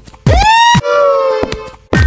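Cartoon sound effects: a pitched sound that swoops sharply upward and holds, then a held tone that sags slightly in pitch and fades, with a short click near the end.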